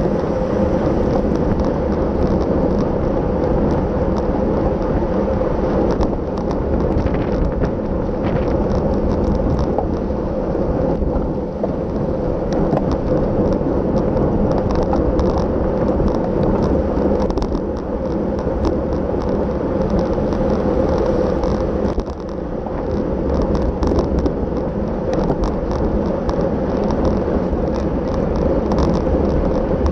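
Wind rushing over the microphone of a bicycle-mounted camera while riding, with a low steady rumble of tyres on the road and many small clicks and ticks.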